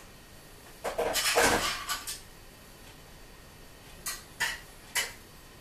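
Handling noise on a glass tabletop as biscuit dough is worked by hand: a loud clattering scuffle about a second in, lasting about a second, then three sharp taps near the end.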